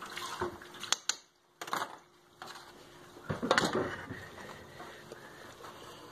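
Kitchenware clattering: a few separate clinks and knocks, the loudest about three and a half seconds in.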